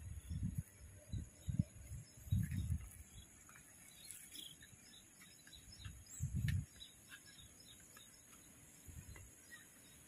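Outdoor ambience: a steady high-pitched insect drone with scattered short chirps. Low thumps from handling of the phone come in the first few seconds and again about six seconds in.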